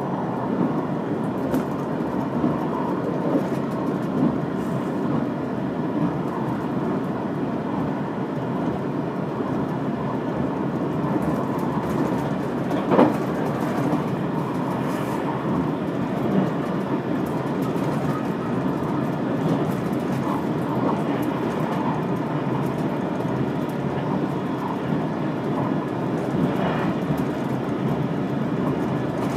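Limited express train running at speed on the Yosan Line, heard from inside the carriage as a steady rumble of wheels on rail. A single sharp knock stands out about halfway through.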